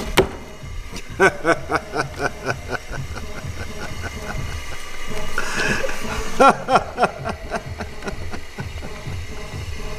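A sharp slap of a playing card on a table just after the start, then a man laughing in short rhythmic bursts about four a second, in two runs with a breathy hiss between them.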